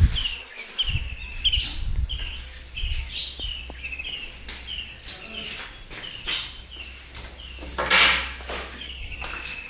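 A bird chirping over and over, short falling chirps about twice a second. Low thumps sound in the first two seconds, and a brief loud rushing burst comes about eight seconds in.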